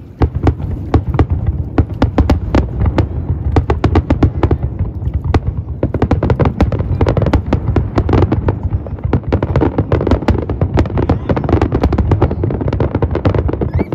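Aerial fireworks display: a rapid, continuous barrage of shell bursts and bangs, growing denser about six seconds in.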